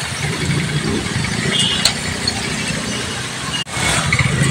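A steady, low engine rumble with street noise; the sound drops out for an instant just before the end.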